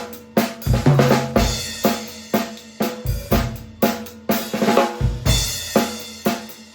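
A drum kit played in a groove to demo a 14 x 8 inch hard maple stave-shell snare drum tuned to a medium pitch. Sharp snare strokes run over bass drum hits and cymbals, with a cymbal wash about five seconds in.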